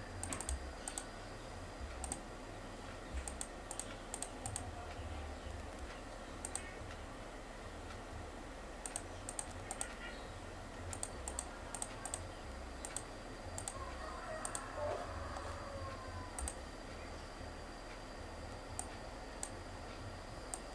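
Computer mouse clicking irregularly, often in quick pairs, as Arabic letters are picked out one at a time on an on-screen keyboard. A steady low hum runs underneath.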